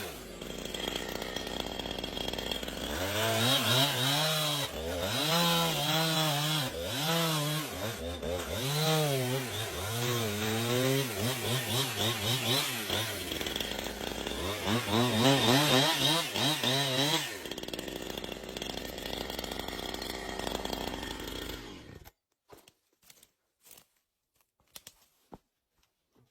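Chainsaw running, its engine speed rising and falling over and over, then settling to a steadier lower note before cutting off abruptly about 22 seconds in; a few faint clicks follow.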